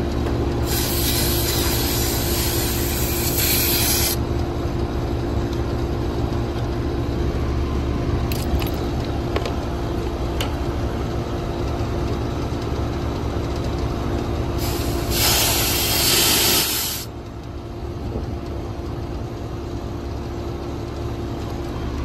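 Package air-conditioning units running with a steady hum, twice broken by long hissing sprays: one of about three seconds near the start and one of about two seconds around fifteen seconds in. The hum's tone drops out shortly after the second hiss.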